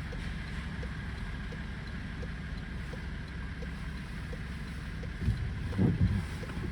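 Steady low road and engine rumble inside a car's cabin, with a faint regular ticking about one and a half times a second. About five seconds in there is a brief, louder pitched sound.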